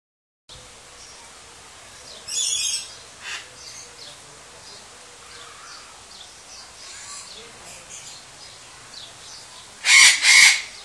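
Rhinoceros hornbill calling: two loud, harsh calls in quick succession near the end, with a shorter harsh burst about two seconds in, over faint chirping of small birds.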